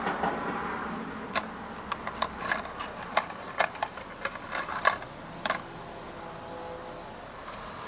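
Young gray squirrel gnawing at a piece of pecan shell: a quick, irregular series of sharp crunching cracks for about four seconds, then it stops.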